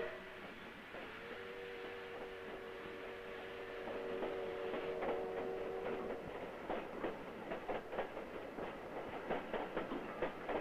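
A train whistle sounds one long steady note of several tones for about five seconds. Then the departing express's wheels click over the rail joints, the clicks coming closer together as it gathers speed.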